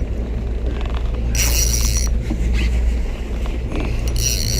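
A boat motor running steadily with a low rumble, and twice a short, high hiss with a thin whistle in it.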